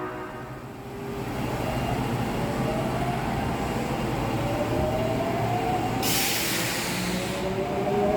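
Osaka Metro 22 series subway train running, its motor whine slowly rising in pitch as it picks up speed. A burst of hissing comes about six seconds in.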